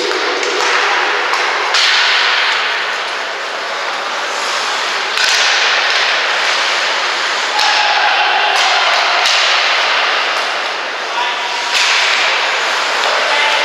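Ice hockey play: skate blades scraping and carving the ice in hissing surges that start suddenly several times, with sharp clacks of sticks and puck.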